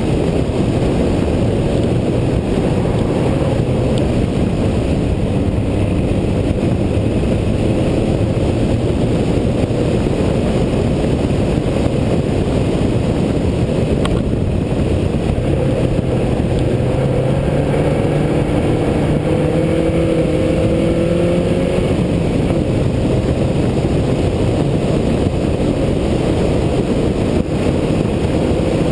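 SAAB 900 Turbo SPG's turbocharged four-cylinder engine pulling hard up a hill climb, under a dense rush of wind and road noise. The engine's pitch climbs steadily from about fifteen to twenty-two seconds in.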